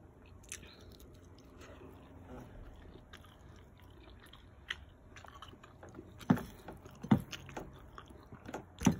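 A person chewing a mouthful of kabsa chicken and rice close to the microphone. Scattered soft mouth clicks, with a few louder ones in the last three seconds.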